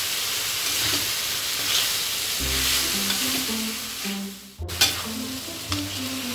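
Cucumber and carrot strips in spice paste sizzling in a hot aluminium wok while a metal spatula stirs and scrapes them, with a few sharp clicks of the spatula on the pan. Simple background music with stepping notes comes in about two seconds in.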